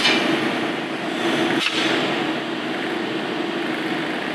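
Steady hum of kitchen ventilation or air conditioning, with a light clink at the start and a short knock about a second and a half in.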